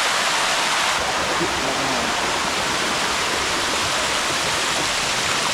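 Waterfall, water pouring and rushing over rock in a loud, steady hiss.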